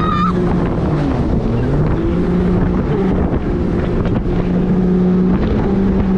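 Jet ski engine running at speed, its pitch dipping and recovering about a second in, then stepping up a little later, with wind buffeting the microphone.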